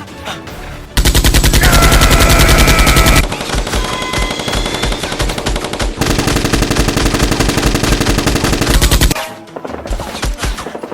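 Rapid automatic gunfire, machine-gun style, in long sustained bursts that start about a second in and stop about nine seconds in, a little quieter in the middle. It is a gunfire sound effect laid over a Nerf blaster fight.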